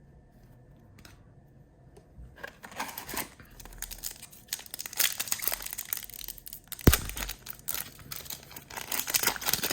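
A Panini Prizm trading-card pack wrapper is torn open and crinkled, starting a couple of seconds in. One sharp knock comes about seven seconds in.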